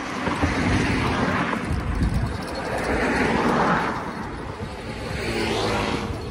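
Road vehicles passing one after another, three of them each swelling and fading, the last rising in pitch as it goes by.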